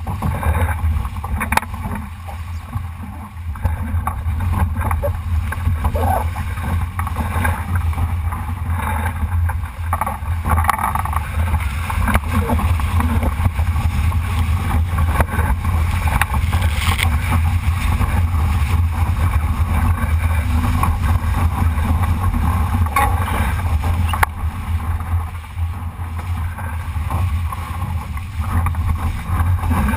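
Solo sailing dinghy underway in strong wind: steady low wind rumble buffeting the GoPro microphone, with water rushing and splashing against the hull.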